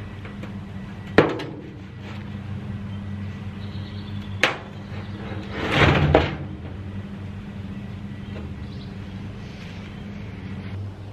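Large empty steel tank being pushed and rolled on corrugated metal sheeting: a loud hollow metal bang with a ringing tail about a second in, a sharp knock a few seconds later, and a longer scraping rumble as it rolls. A steady low hum runs underneath.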